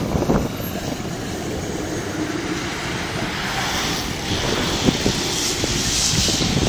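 Combino tram moving slowly past close by: a steady rumble and hiss with a few sharp cracks, the sharpest nearly five seconds in, as a high hiss swells over the second half. Its pantograph is running on an overhead wire glazed with freezing-rain ice, which makes it spark.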